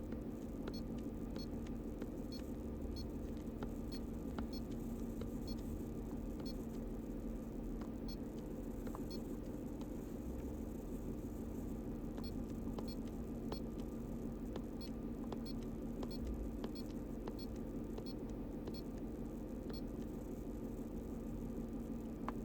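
Car engine idling evenly with no misfire: a steady hum with a faint regular tick about twice a second.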